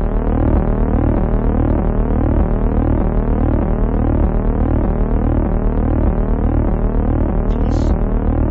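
Electronic synthesizer drone: a steady low hum under a fast, evenly repeating pattern of rising tone sweeps.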